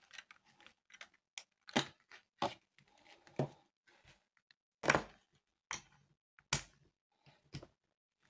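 Scattered short clicks and light knocks of small plastic electrical parts being handled and set down on a tabletop: a bulb holder, wire and a two-pin plug, with a glass bulb brought to the holder near the end. About a dozen separate taps, the strongest about five and six and a half seconds in.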